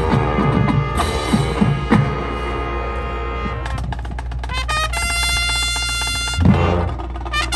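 High school marching band playing: brass over drumline strikes, then the horns hold one long chord for a few seconds before cutting off and starting a new chord near the end.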